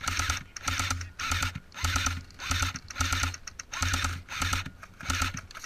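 Airsoft electric gun firing at a steady pace in short full-auto bursts: about nine rapid clattering bursts, each roughly a third of a second long, about every 0.6 s.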